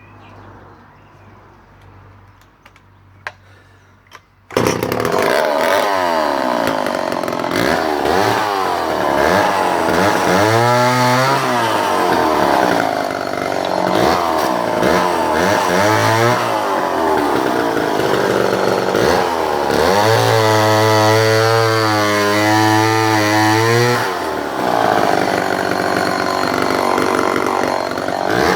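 Remington SL4 59cc two-stroke chainsaw, early 1970s, coming to life suddenly about four and a half seconds in after a quiet spell with a couple of clicks. It then runs with the throttle opened and closed over and over, the engine note rising and falling, held at a steady high rev for a few seconds near the end.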